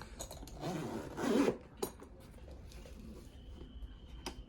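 Zipper of a Veto Pro Pac Tech Pac MC tool backpack being pulled open in a rasping run of about a second, followed by a single sharp click and light handling of the bag.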